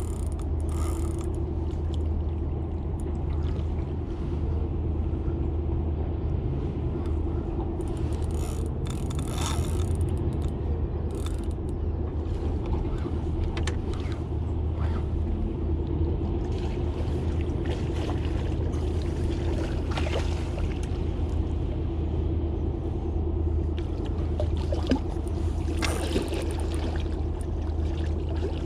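Boat motor running steadily, a low hum with a steady higher tone over it, with a few brief knocks or splashes along the way.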